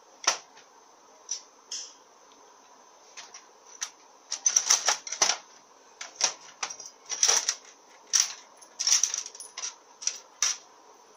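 Small steel bolts clicking and clinking against each other as they are picked up and sorted by hand. The clicks come irregularly, a few at first, then in close clusters from about four seconds in.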